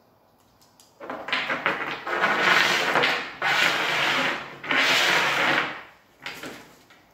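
Small stones being scraped and slid by hand across a tabletop, in several long scraping strokes from about a second in until about six seconds, followed by a few fainter taps.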